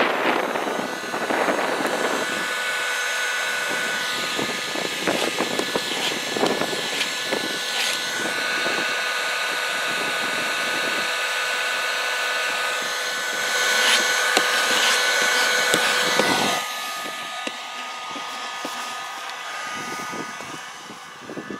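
Electric heat gun running with a steady whine as it is held on varnished teak to soften the old varnish, with a scraper rasping over the wood now and then. The gun's sound stops suddenly about three quarters of the way through.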